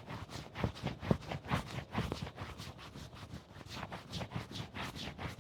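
A hand rubbing briskly back and forth across the collarbone in a self-massage, an even rhythmic brushing of about four strokes a second.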